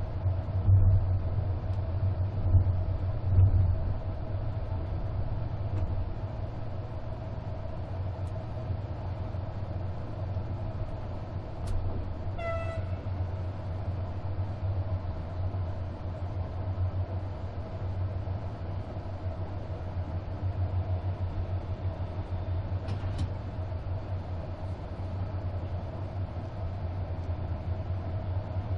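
Passenger train carriage heard from inside as it rolls into a station: a steady low rumble of wheels on track with a faint steady hum. There are a few louder knocks in the first few seconds and one short high tone about halfway through.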